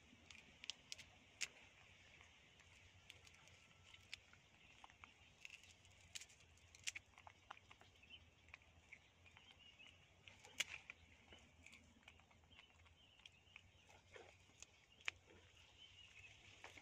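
Near silence: faint outdoor ambience with distant bird calls, broken by scattered soft clicks.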